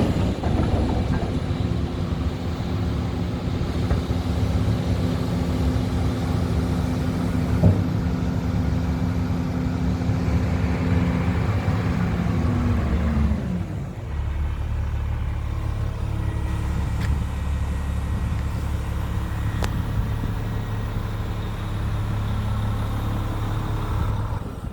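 Hyundai Robex 500 excavator's diesel engine running steadily, with one sharp knock about a third of the way in. About thirteen seconds in the revs drop, and the engine settles to a lower, steady note.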